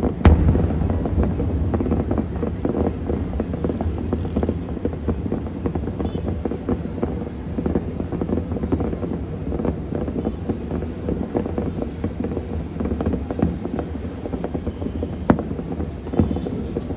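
Distant fireworks popping and crackling in quick, irregular succession, with a sharper bang just after the start and another about fifteen seconds in. Wind rumbles on the microphone underneath.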